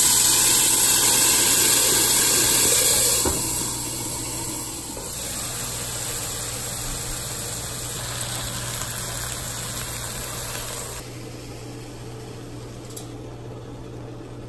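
Chicken breasts sizzling in a hot skillet, with a loud hiss of steam for the first three seconds or so, then a softer steady sizzle.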